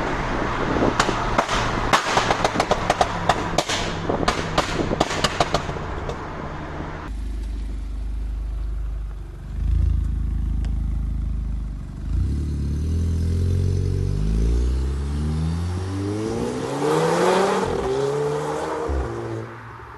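Audi TT Mk2's turbocharged 2.0 TFSI four-cylinder: for the first seven seconds a rapid string of sharp exhaust pops and crackles on the overrun. Then the engine runs low and steady, and from about halfway through it accelerates hard, its note rising several times before dropping away near the end.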